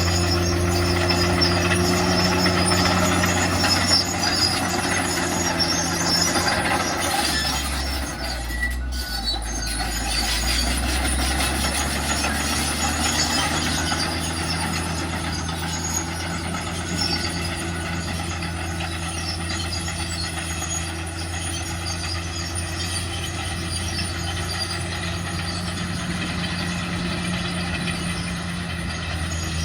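Dump truck's diesel engine running steadily with a hiss over it; about eight seconds in the engine note drops lower, then holds steady again.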